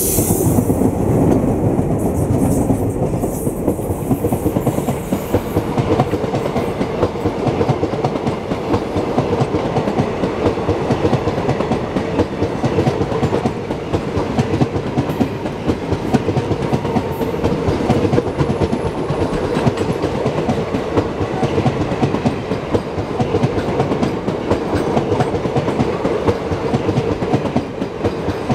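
Express passenger train passing close by at speed: a loud, steady rumble with the rapid clatter of coach wheels over the rail joints. In the first few seconds the second of its twin WDM-series diesel locomotives goes by, before the coaches follow.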